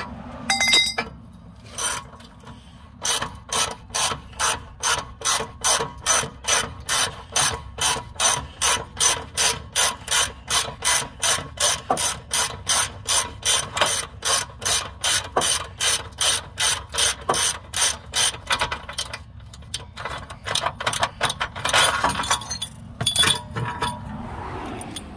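Ratcheting wrench clicking steadily, about two to three clicks a second, as it is swung back and forth to turn the nut on the all-thread of a homemade bushing press, forcing a suspension bushing out of its arm. The clicking stops briefly about two-thirds of the way through, then a few more clicks follow near the end.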